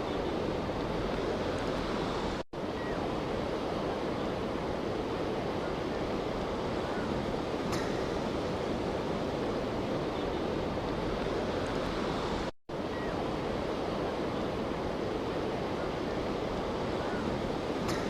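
Steady rushing noise of wind and waves on open water, with wind buffeting the microphone. It cuts out for an instant twice, once about two and a half seconds in and again about twelve and a half seconds in.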